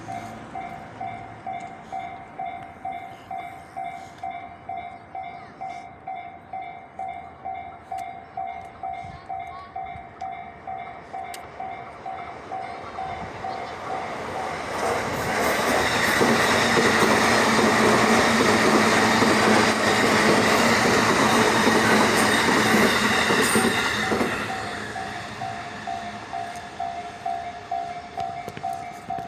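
Japanese level-crossing warning bell dinging steadily, about three times every two seconds. About halfway through, a train runs past the crossing for roughly ten seconds and drowns the bell, which can be heard again once the train has gone.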